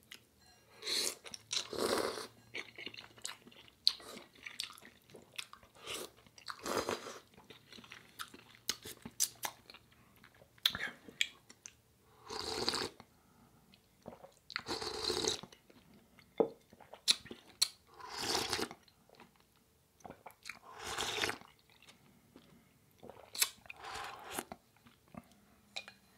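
Close-miked eating of instant ramen noodle soup: chewing with wet mouth clicks, broken by about six longer slurps of noodles and of broth sipped straight from the bowl.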